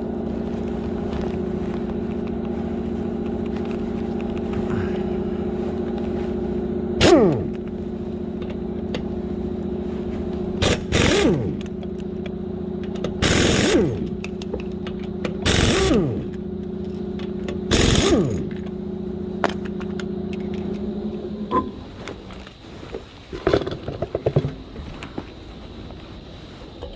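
An impact wrench fires in short bursts on the wheel nuts, five or six times, each burst winding down with a falling pitch. Under it a steady machine hum runs and stops about four-fifths of the way through.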